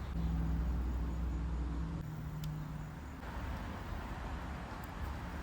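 Low engine hum of a motor vehicle with a steady pitch, dying away about two to three seconds in and leaving a soft hiss.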